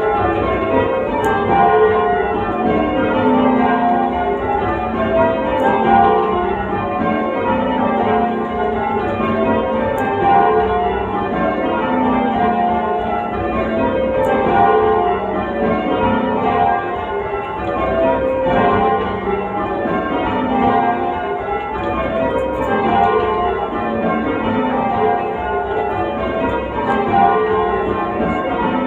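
Ring of eight church bells rung full-circle by hand in rounds: each row steps down from the treble to the tenor, over and over, at an even pace.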